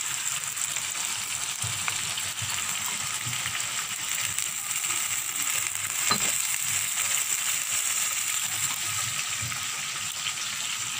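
Onions and ground spices sizzling steadily in hot oil in a steel pan, stirred with a wooden spoon: the masala being fried down (bhuna) for a chicken curry.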